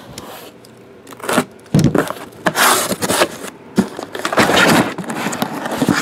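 A cardboard shipping case being handled and emptied: the cardboard scrapes and rustles, and shrink-wrapped card boxes slide out. There is a thump about two seconds in, with longer stretches of scraping near the middle and towards the end.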